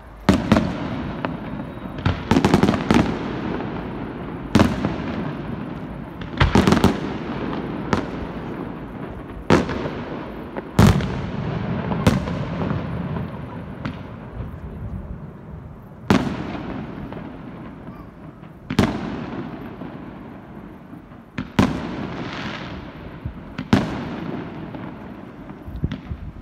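Aerial firework shells bursting in the sky: sharp booms about every two seconds, some coming in quick pairs, each followed by a fading crackle.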